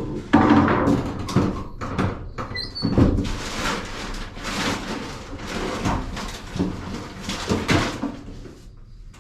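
Objects being handled and moved about: an irregular run of knocks, rattles and rustling, like a cupboard or sliding door being worked while something is fetched out.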